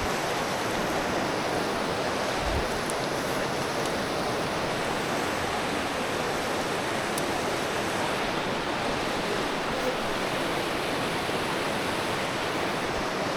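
Clear Creek's fast-flowing water rushing steadily over rocks.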